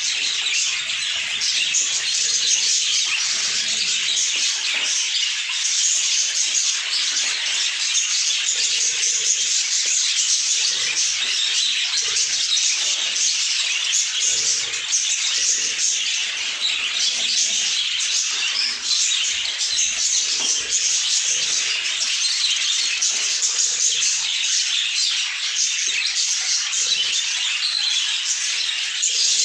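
A group of budgerigars chattering and warbling together, a dense, continuous high twittering with no pauses.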